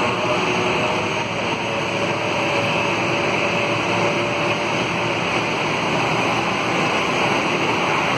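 Boeing 787-8 airliner's jet engines running at taxi power while it taxis, a steady whooshing jet noise with no change in level.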